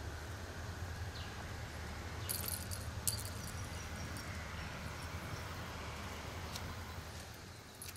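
Outdoor ambience: a steady low rumble with faint insect chirping, and a few sharp clicks about two to three seconds in.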